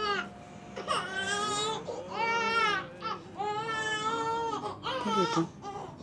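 A baby crying in a run of high-pitched wails, about four in a row, each lasting around a second with short breaths between.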